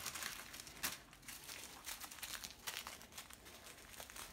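Small plastic zip bags of diamond painting drills crinkling as they are handled. The rustle is loudest in the first second, with one sharp crackle, then goes on as lighter, intermittent crinkling.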